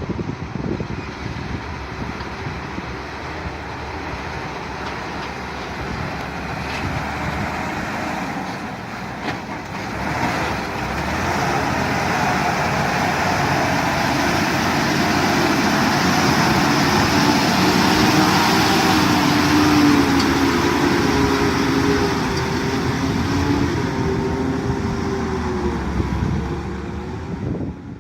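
Heavy diesel engine running under load, growing louder about ten seconds in, its pitch wavering up and down through the second half.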